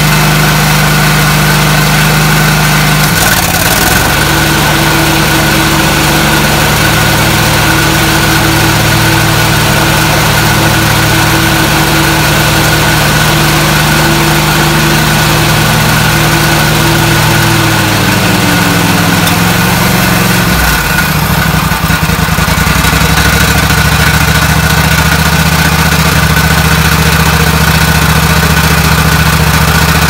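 Kohler 7000 series V-twin engine of a zero-turn riding mower running steadily and close by. Its speed shifts a few seconds in and drops lower about two-thirds of the way through. It is running again now that a blown fuse behind the no-crank fault has been replaced.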